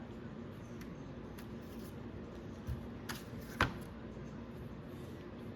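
Plastic AFX slot car track sections being handled and fitted together: a few light clicks, then one sharp snap about three and a half seconds in.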